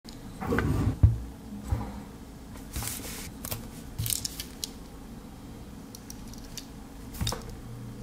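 Handling of a Victorinox Swiss Army knife: a thump about a second in, then short scrapes and light metallic clicks as a blade is pried out, with a click near the end as the blade snaps open on its spring.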